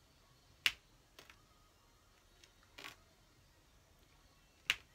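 Small sharp plastic clicks of a diamond painting drill pen tapping the drill tray and pressing resin drills onto the canvas: four clicks, the loudest about a second in and near the end.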